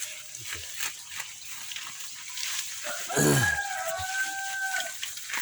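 A rooster crowing once about three seconds in, a long held call that trails off near the end. Its start is overlapped by a louder, short call that falls steeply in pitch.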